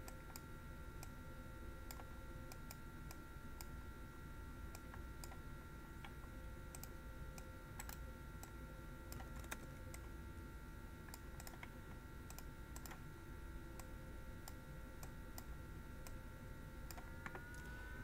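Faint, irregular light clicks and taps from computer input while a solution is written on a digital whiteboard. Under them runs a steady thin electrical whine with a low hum.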